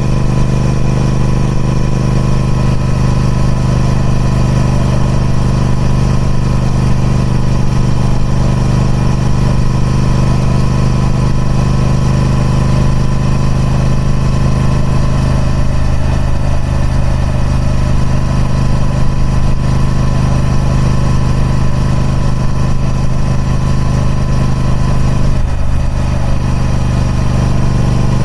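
Triumph Speed Twin 1200's 1200cc parallel-twin engine running steadily through its stock exhaust, holding one even engine speed with no revving.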